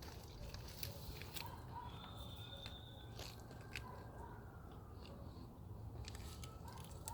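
A dog chewing fresh cilantro, faint and soft, with a few scattered crunches and mouth clicks.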